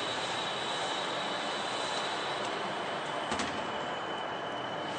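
Steady industrial machinery noise with a high, steady whine, from a pipe-handling line moving a large coated steel pipe along its conveyor. A sharp click comes a little over three seconds in.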